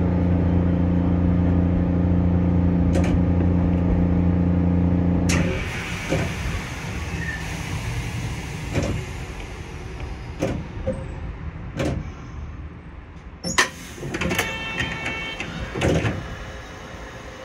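Tram heard from on board: a steady hum that cuts off suddenly about five seconds in, then quieter running with scattered clicks and clanks, and a short repeated high chime near the end.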